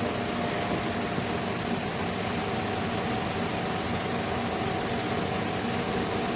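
Steady background whir and hiss of a cooling fan running, with a faint steady hum tone.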